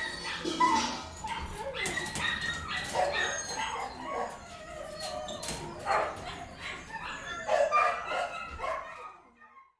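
Many dogs in a kennel barking, yipping and whining over one another in a continuous din, fading out near the end.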